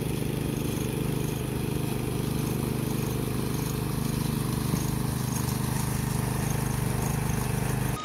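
Small petrol engine of a concrete power trowel running steadily at a constant speed.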